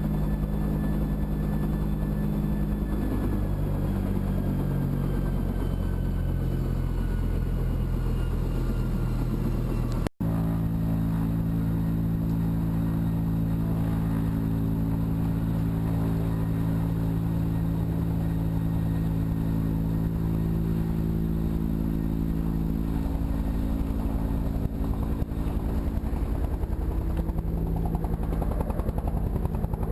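An engine running steadily at an even speed. For the first ten seconds a faint tone slides slowly downward above it.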